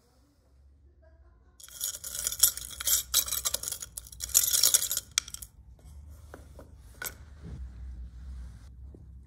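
Small brass parts clinking and jingling together in a dense clatter for about four seconds, then a few separate light clicks and taps.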